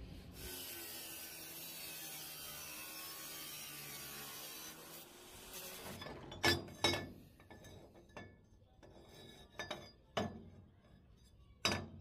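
Metalworking sounds: a steady scraping hiss for about five seconds, then sharp metal knocks and clinks, about six of them at irregular intervals.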